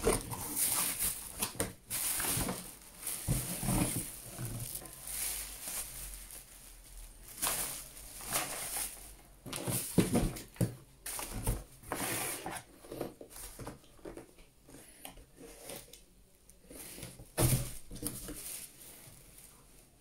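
Cardboard box and the clear plastic wrapping of a desk fan being handled: irregular rustling, crinkling and scraping, with a few louder knocks as the fan is lifted out.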